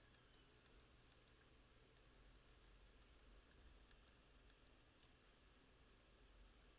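Faint, sharp clicks of a Razer Viper Mini gaming mouse's buttons being pressed, well over a dozen at uneven spacing, several in quick pairs, stopping about five seconds in.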